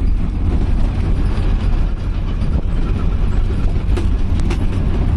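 Steady low rumble of a vehicle moving along a road, with a few short knocks about four seconds in.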